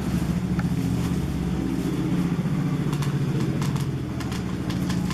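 A small engine running steadily with a low, evenly pulsing hum, with a few sharp clicks about three to four seconds in.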